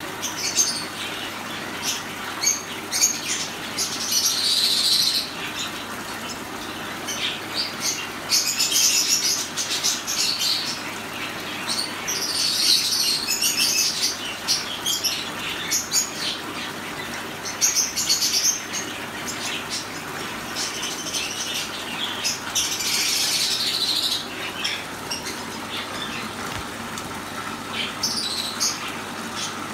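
Black-headed siskin at a tabletop rock fountain: the fountain's water trickles steadily into its basin, while several brief high-pitched bursts of about a second each, with scattered sharp ticks, come from the bird.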